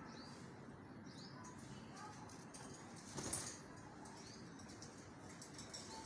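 Alexandrine parakeets giving a few faint, short high chirps, with one brief burst of wing flapping a little past halfway.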